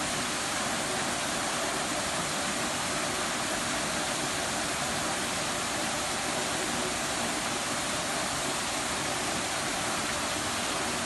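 Steady rush of flowing water, an even hiss at the same level throughout.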